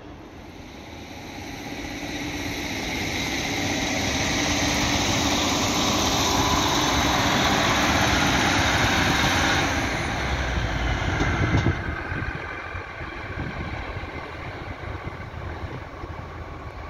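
An East Midlands Railway Class 156 Super Sprinter diesel multiple unit passing close by, its underfloor diesel engine and wheels on the rails growing louder over the first ten seconds, then fading as it draws away. There is a brief knock shortly after the peak.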